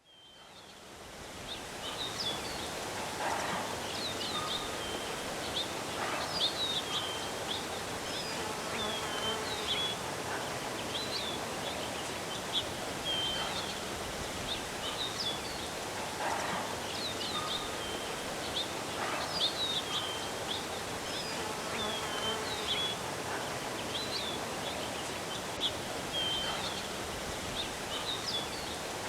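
Outdoor nature ambience fading in over the first second or two: many small birds chirping in short, repeated calls over a steady background hiss.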